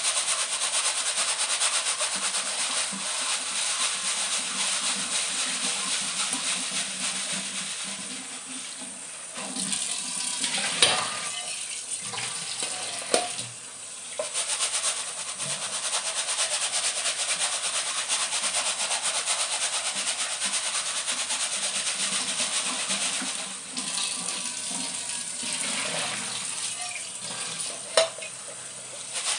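Kitchen tap running in a steady stream onto seeds in a plastic strainer, the water splashing into a stainless steel sink as the seeds are swirled and rinsed by hand. A few brief knocks, around the middle and near the end.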